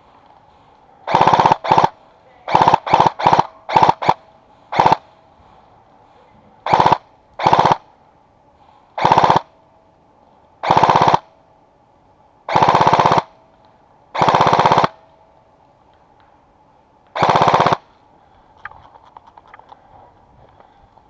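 Airsoft gun firing close by in short full-auto bursts, each a rapid rattle of shots. About fifteen bursts: several quick ones in the first five seconds, then longer bursts every couple of seconds until near the end.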